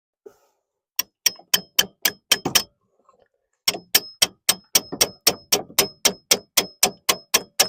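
Hammer striking a 13mm deep socket to force a new gearbox linkage rod end onto its ball joint: rapid ringing metallic blows, about three a second, a short run of seven, a brief pause, then a longer run. The rod end is not going on.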